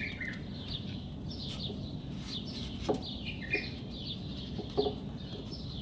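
Small birds chirping over and over in quick, short calls, with a few louder short low sounds about three and five seconds in.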